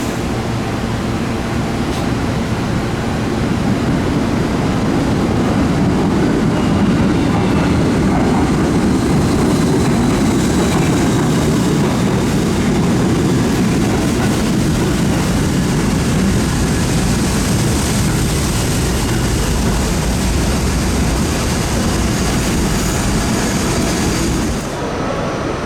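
R68 subway train running on the rails, a steady loud rumble and rush that eases a little near the end.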